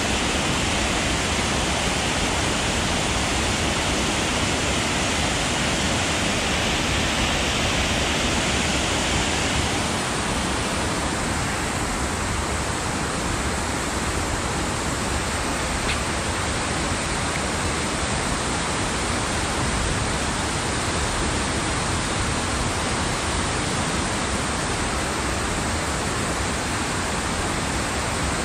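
Water pouring over a dam spillway and waterfall: a steady, even rush of falling water, a little sharper in the first third.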